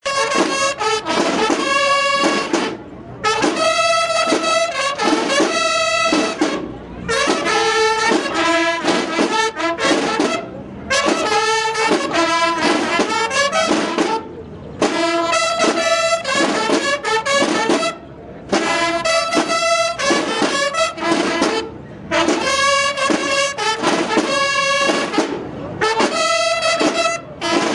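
A Mexican banda de guerra playing a march call: a section of bugles (cornetas) in unison over snare drums. The call comes in short phrases with a brief break about every four seconds.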